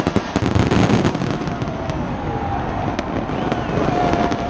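Fireworks display: many crackling bursts and sharp bangs, thickest in the first second and a half, over a steady rumble of noise.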